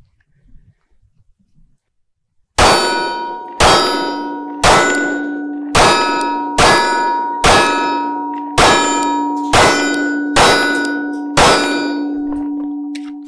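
A string of about ten 9mm shots from a Glock 43X, roughly one a second, each hit ringing a steel target like a struck bell. The ring lingers after the last shot.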